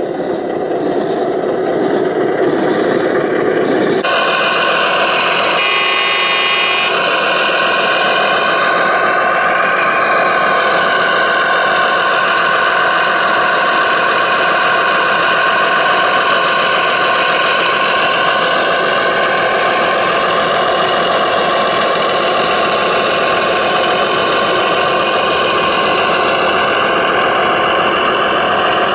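Radio-controlled model machinery running: a lower rumble for the first few seconds, then a steady, slightly wavering high whine of small electric motors and drives.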